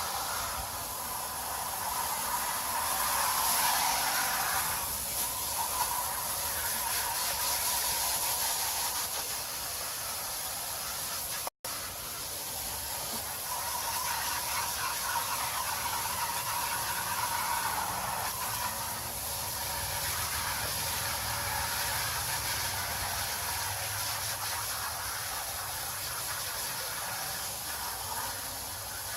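Garden hose spraying water, a steady hiss that swells and eases, rinsing an air-conditioner coil. There is a brief dropout about halfway through.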